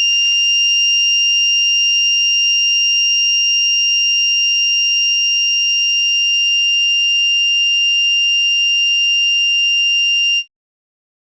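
Homemade fire alarm circuit's buzzer sounding one steady, high-pitched tone, then cutting off suddenly near the end.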